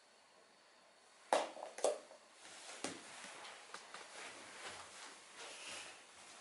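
Two sharp knocks about half a second apart, another a second later, then the rustle and footfalls of a person getting up off a rug and walking across a wooden floor.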